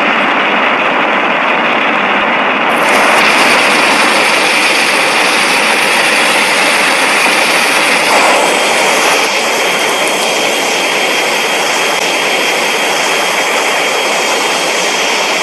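Edited monster sound effect: a long, loud, steady rushing blast like a jet engine. A brighter hiss joins about three seconds in, with a thin high whine over it.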